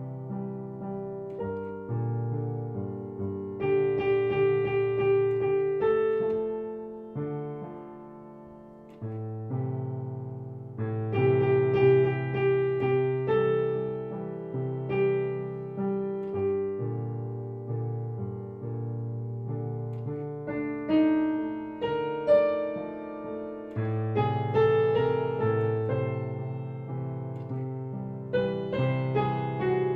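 Piano music: chords and melody notes over changing low notes, each note struck and left to ring and fade. It thins out and quietens around eight seconds in, then picks up again.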